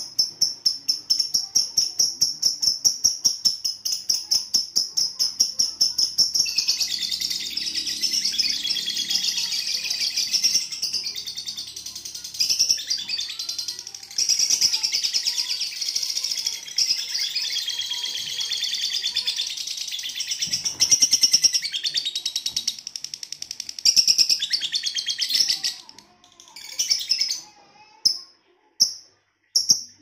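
Lovebird chattering: a fast run of separate chirps, then a long unbroken high trill of about twenty seconds with only brief catches. It is the extended 'ngekek' trill that contest lovebirds are kept for. The trill stops a few seconds before the end, leaving a few single chirps.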